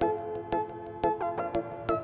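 Background music with a steady beat, about two beats a second, under a melody of held keyboard notes.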